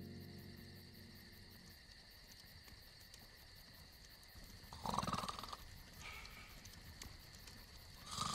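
A man snoring in his sleep, faint: two snores about three seconds apart, with a smaller one between them. A music cue fades out at the start.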